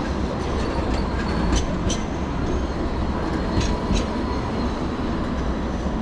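Light rail tram running past with a steady low rumble and hum. A few sharp clicks from the wheels on the rails come about one and a half to two seconds in and again near four seconds.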